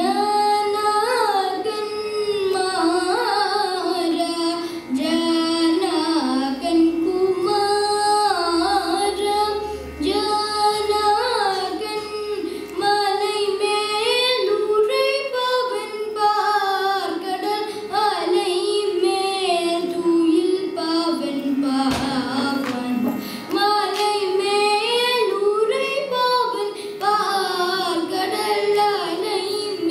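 A boy singing a Carnatic kriti, his voice sliding and bending between notes in long ornamented phrases, with short breaths between them.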